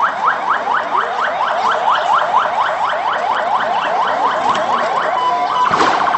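Electronic alarm siren sounding a rapid train of rising whoops, about five a second. Near the end it switches to a brief steady tone and then a fast warble.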